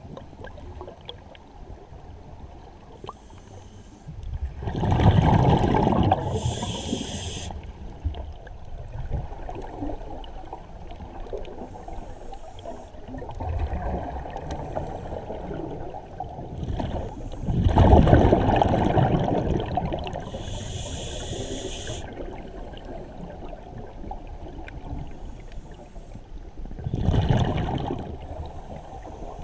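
Scuba diver breathing through a regulator underwater: three loud rumbles of exhaled bubbles, about five seconds in, around eighteen seconds and near the end, with short hissing inhalations through the regulator between them over a steady underwater rush.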